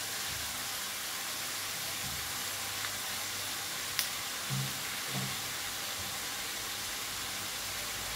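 Chicken wings frying in oil in a wok, a steady sizzling hiss. A single sharp click comes about four seconds in, followed by two soft low thuds.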